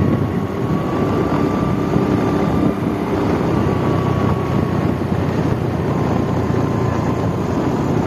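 A vehicle driving along at a steady speed: continuous engine and road noise with wind rumbling on the microphone, and a faint steady whine above it.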